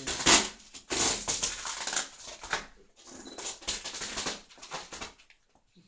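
Packing tape being torn and peeled off a cardboard box in three long, rasping pulls, with cardboard scraping under the hands.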